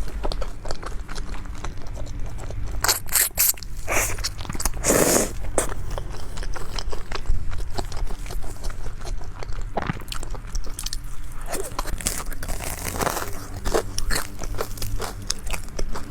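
Close-miked eating: a steady run of crunchy bites and chewing, with a few louder crunches.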